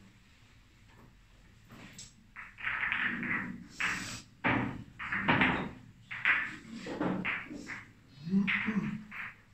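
A run of irregular knocks and thuds starting about two and a half seconds in, with some low voices among them.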